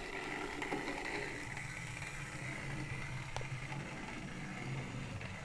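Hornby OO gauge L&Y Pug model locomotive running on its track: the small motor and gears whir steadily as the wheels roll along the rails. There is a single click about three and a half seconds in.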